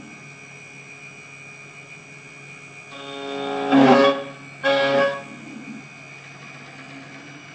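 Desktop CNC engraving machine running steadily, its spindle whining as the end mill cuts a metal workpiece on a rotary axis. About three seconds in, a loud pitched tone swells for about a second and cuts off, followed by a second, shorter tone.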